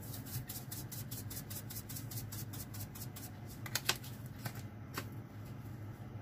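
Kitchen utensil clicking rapidly against a dish or meat, about six light clicks a second for some three seconds, then a few louder separate clicks, over a steady low hum.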